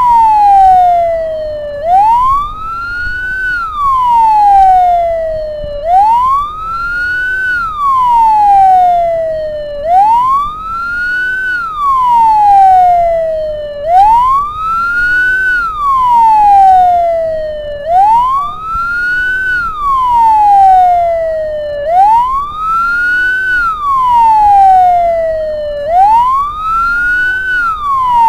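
Ambulance siren wailing in a repeating cycle, about every four seconds: the tone sweeps quickly up, then glides slowly back down. A low steady rumble runs underneath.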